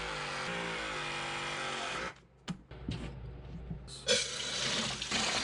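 Battery-powered Vevor mini press tool running as it crimps a copper press fitting, its motor pitch sliding down under load before cutting off about two seconds in. A second burst of hissing noise follows near the end.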